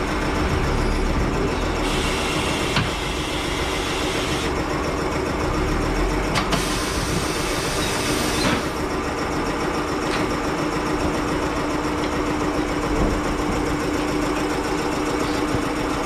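Tyre-shop work with machinery running steadily. Two bursts of hissing air come in, each about two seconds long, along with a few sharp knocks.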